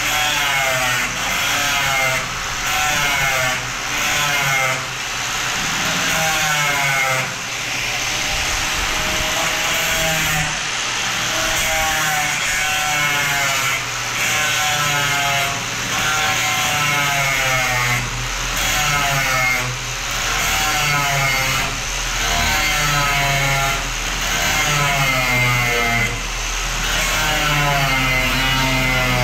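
Handheld grinder cutting into the steel body panel of a 1962 Chevrolet Impala. The motor's whine sags and climbs again and again as the disc bites into the metal and eases off.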